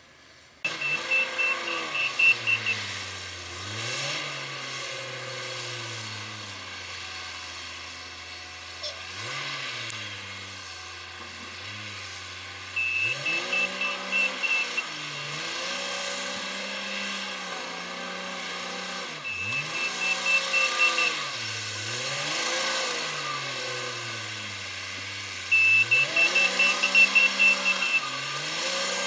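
Komatsu WA350 wheel loader's diesel engine revving up and down repeatedly, with its reverse alarm beeping rapidly in four spells as it backs up. The uploader finds the machine's sound when reversing odd.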